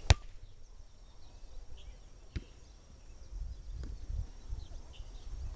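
Outdoor ambience with uneven rumble on the microphone, a loud sharp knock just after the start and a smaller one about two seconds later, and faint bird chirps.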